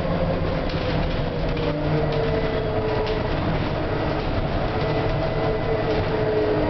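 Volvo B9TL double-decker bus driving, heard from inside the passenger saloon: the engine and drivetrain keep up a steady low drone. Over it a whining tone falls slowly in pitch, twice.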